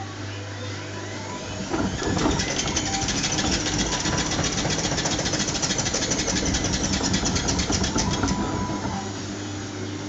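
Zanussi front-loading washing machine running in its rinse: a steady low hum, then from about two seconds in a louder, fast rhythmic mechanical whir as the drum turns the wet laundry, dropping back to the hum near the end.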